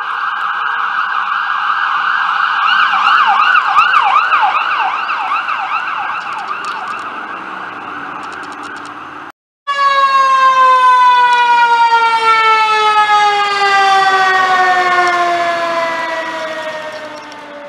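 Fire-truck siren sounding, rising in loudness and switching to a fast warble about three seconds in, then fading. After a sudden cut, a fire-truck siren winds slowly and steadily down in pitch and fades near the end, the coast-down of a mechanical siren.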